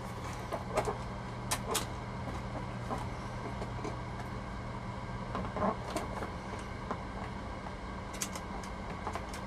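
A handful of small, scattered plastic clicks and taps as accessory pieces are handled and pushed into place on a plastic toy car, over a steady low hum.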